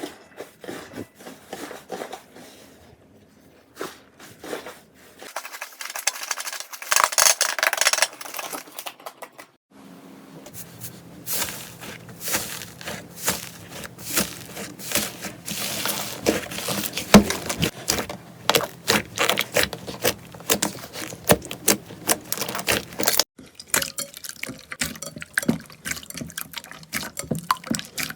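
Slime being squeezed and stretched by hand, making many quick wet clicks and pops in dense runs.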